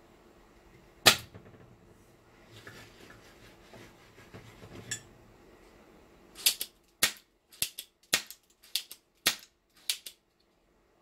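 A spring-loaded solder sucker (desoldering pump) fires with one loud, sharp snap about a second in, followed by faint scraping at the board. In the second half comes a quick run of about seven sharp clicks, roughly two a second.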